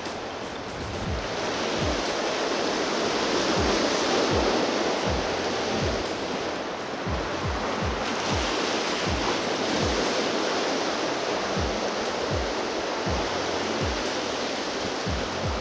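Sea surf washing and breaking over shoreline rocks, a steady rush that swells about four seconds in, under background music with a low, regular beat.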